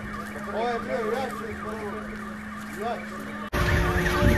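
Car alarms set off by the earthquake, wailing with a pitch that sweeps quickly up and down over a steady hum. About three and a half seconds in, the sound cuts to a louder alarm with a faster up-and-down wail.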